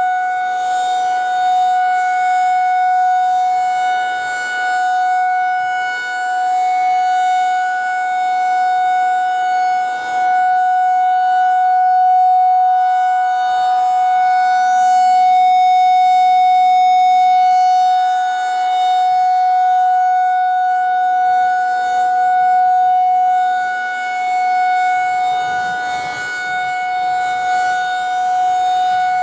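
Federal Signal 2001 rotating outdoor warning siren sounding a steady tone at full pitch during its monthly test. The pitch holds constant while the loudness swells and fades every few seconds as the siren head rotates.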